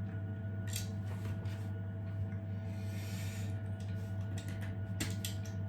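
A few light clicks and a brief rustle of small 3D-printed plastic parts being handled and fitted together, over a steady low hum.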